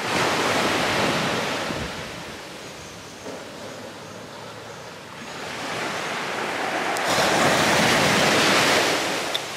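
Ocean waves breaking and washing up on shore, the surf swelling twice.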